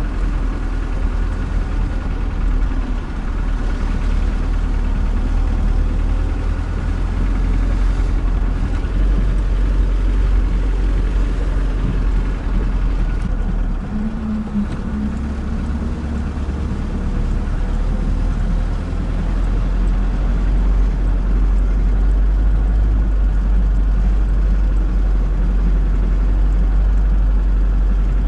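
UAZ Bukhanka van's engine running steadily as the van drives over a muddy off-road track, a continuous low engine sound that grows slightly louder in the second half.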